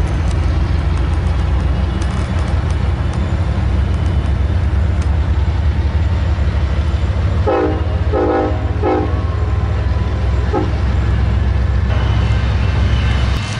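Freight train rumbling steadily across a river bridge behind its diesel locomotives, with the locomotive horn sounding a few short blasts a little past halfway.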